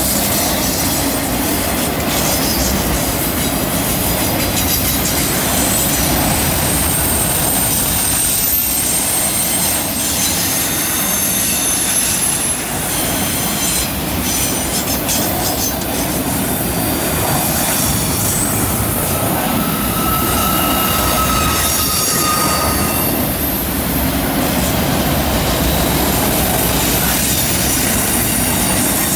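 Freight train of autorack cars rolling past on a curve: a steady rumble of steel wheels on rail, with high wheel-flange squeals coming and going as the wheels grind through the curve.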